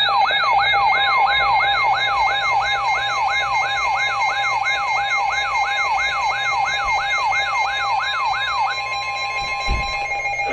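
Electronic siren on a fast yelp, its pitch sweeping up and down about three times a second over a steady tone. The yelp stops about nine seconds in, leaving only a steady tone.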